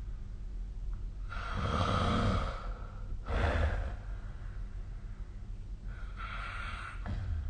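A sleeping person snoring: a long, loud, rasping in-breath about a second in, a shorter out-breath about three seconds in, and another snoring breath near the end.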